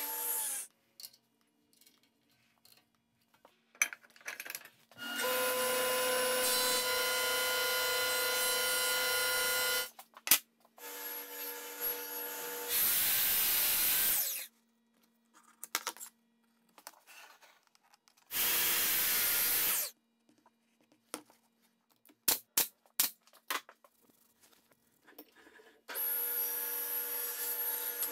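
Woodshop machines in separate bursts with quiet gaps between: a table saw cutting, a Williams & Hussey molding planer running, and, near the end, a quick series of sharp pneumatic nailer shots before the table saw runs again.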